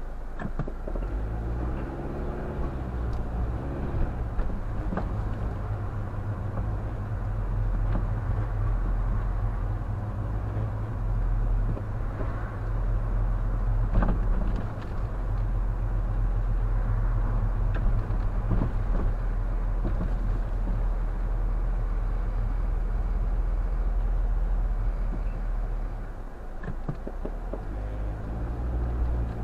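A car driving along a city street, heard from inside: a steady low engine and road rumble. The engine's pitch rises and falls about two seconds in and again near the end.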